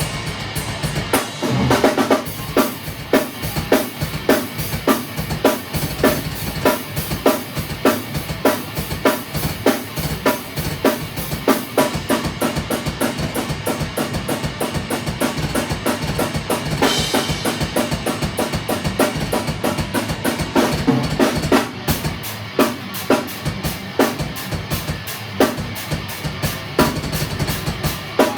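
A drum kit being played live in a steady beat, with bass drum and snare hits landing about twice a second, as part of a band jam.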